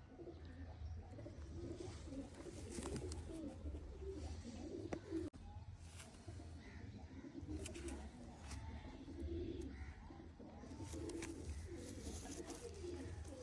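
Domestic pigeons cooing: repeated low, throaty coos that follow one another through the whole stretch, over a steady low hum.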